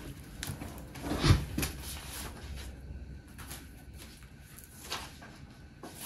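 A person settling into a canvas sling chair and handling a book: one louder thump about a second in, then a few light knocks and rustles as the book is picked up and opened.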